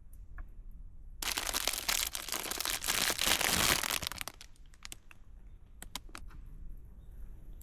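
Packaging crinkling and rustling for about three seconds, followed by a few short clicks, as food is unpacked.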